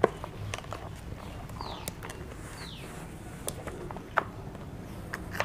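Light, scattered clicks and knocks of a motorcycle's plastic indicator housing and chrome indicator stalks being handled and fitted together by hand. Two short high chirps falling in pitch come about two seconds in.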